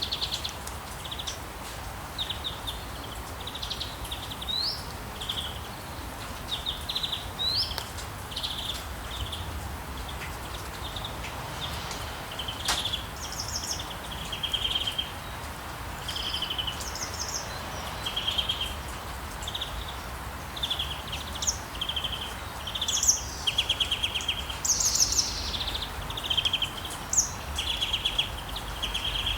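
Several small songbirds chirping and singing in short repeated phrases, some with quick rising notes, busier near the end, over a steady hiss of rain and a low rumble of town background.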